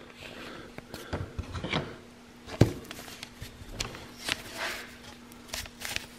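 Handling sounds of a carved wooden walking stick being moved on a paper-covered work surface: scattered light knocks and rubs, the loudest knock a little under halfway through, over a faint steady hum.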